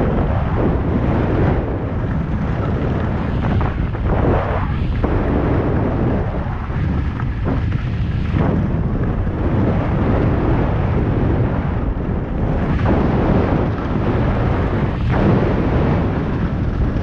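Wind buffeting an action camera's microphone while descending a snow slope at speed, a loud continuous rumble, with the hiss and scrape of edges on snow swelling through each turn.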